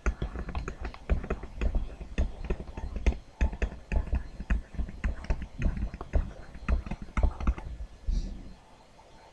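Irregular run of clicks and knocks from a stylus tapping and stroking on a tablet screen while lines and letters are drawn, thinning out near the end.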